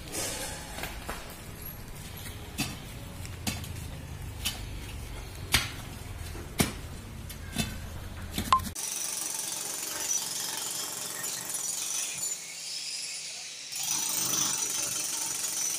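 Sharp strikes about once a second over a low rumble, typical of hand tools hitting hard ground or stone in trench work. About halfway through the audio cuts off suddenly to a steady hiss with a faint high whine.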